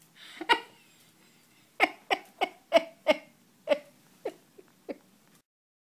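A dog barking: one short bark, then a quick run of short, sharp barks that slows near the end and stops abruptly.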